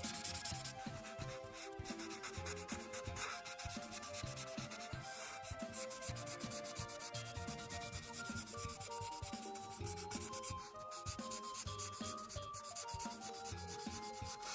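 Ohuhu marker tips scratching back and forth on paper in quick, continuous strokes while a page is colored in, with soft background music playing a simple melody.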